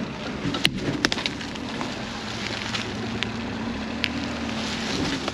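A 1997 Daihatsu 4x4 kei truck creeping along at low speed, its small engine running with a wavering hum, while the tyres crunch over dry leaves and snap twigs in a few sharp cracks.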